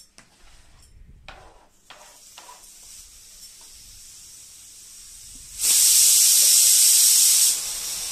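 A few light kitchen knocks, then chopped ingredients tipped into hot oil in a wok sizzle loudly for about two seconds before settling into a quieter steady frying sizzle.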